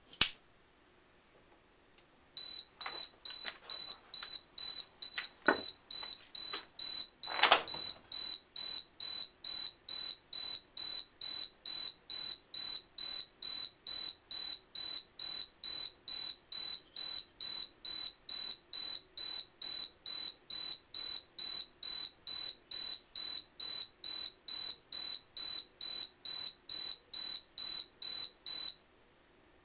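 A dummy alarm keypad's bleeper sounding short, high single-tone beeps at a steady two a second as the keypad is set by turning the lights off. The beeping starts a couple of seconds in, after a click, and cuts off abruptly near the end. A couple of knocks are heard among the first beeps.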